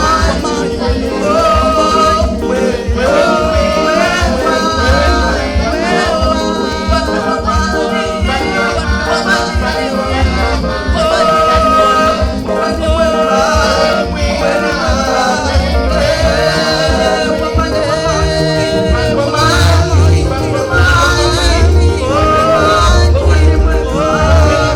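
Upbeat worship music with voices singing over a steady, driving bass beat.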